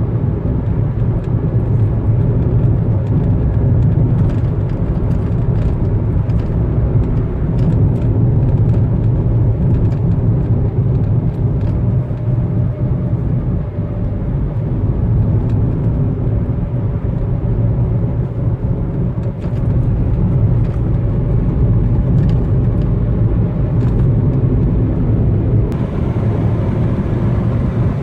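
A car driving at steady speed: a continuous low rumble of engine and tyre noise with no change in pace.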